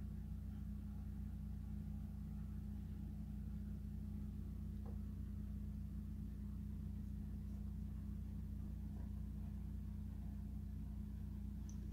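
Steady low hum of room background, with one faint click about five seconds in.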